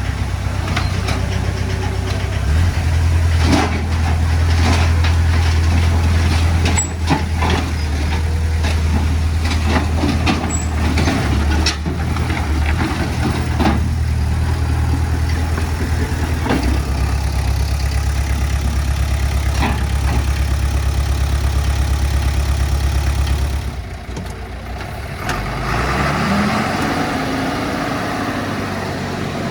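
Komatsu D20P bulldozer's diesel engine running steadily and heavily, with scattered clanks and knocks as it works stone and soil. Near the end the engine sound drops, then a different engine note rises in pitch.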